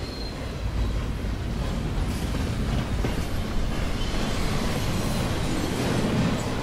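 Freight train rolling past close by: a steady rumble of the cars' wheels on the rails.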